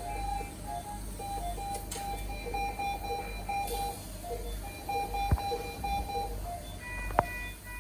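A tinny electronic tune of short beeping tones at a few different pitches, with two sharp clicks a couple of seconds apart near the end.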